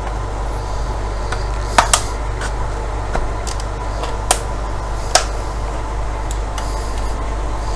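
Several sharp clicks and snaps of a plastic router casing being worked at to get its bottom cover off, over a steady low hum.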